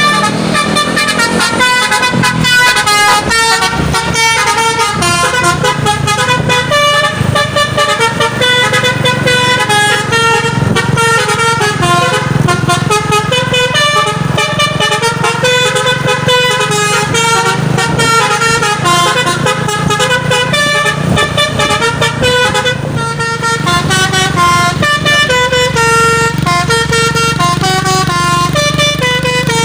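Truck's telolet basuri musical horn playing a quick melody of stepped notes without pause, over the steady sound of the truck's engine running.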